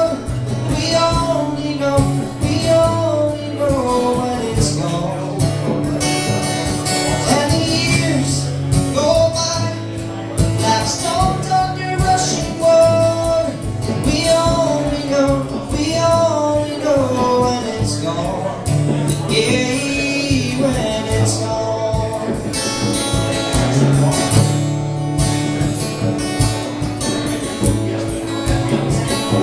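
Live acoustic band music: an instrumental passage with guitar and a gliding melodic lead line over a steady bass.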